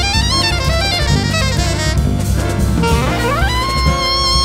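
Soprano saxophone soloing in a jazz band, with drums and bass underneath: fast runs of notes, then about three seconds in a quick upward slide into a long held high note.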